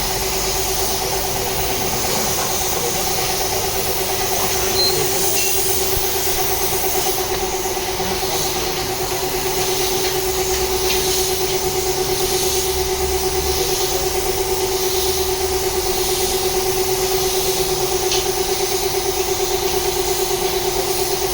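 A small motor running steadily at one unchanging pitch for the whole stretch, with a hiss over it.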